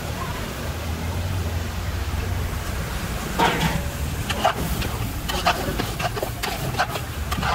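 A steel ladle stirring peas, diced potato and tomato in a steel cooking pot: from about three and a half seconds in, irregular clinks and scrapes of metal on metal, over a steady low rumble.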